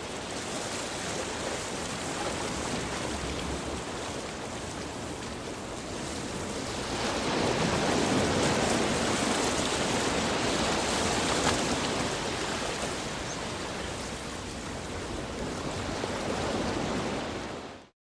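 Ocean surf: a steady rush of breaking waves that swells louder about seven seconds in, eases off again, and fades out at the end.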